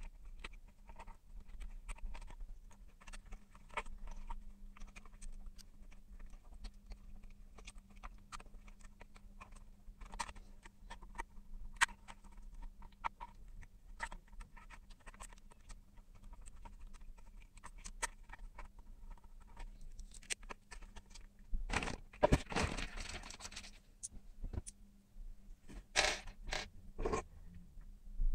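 Hands handling a clear plastic (acrylic) enclosure and its wired amplifier boards, with scattered small clicks, taps and scrapes as the parts are fitted together. There is a louder run of scraping about three quarters of the way through and a few sharper clicks near the end, over a faint steady low hum.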